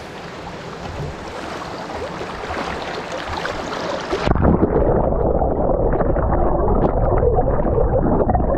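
Fast-flowing creek water, rising in level as the microphone nears the surface. About four seconds in the microphone goes under, and the stream suddenly turns to a muffled, deep underwater gurgling with the high end cut away.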